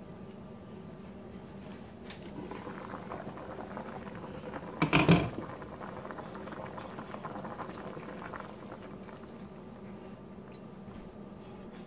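A pot of meat boiling, a steady bubbling; about five seconds in there is a short, loud clatter as the pot's glass lid is lifted off.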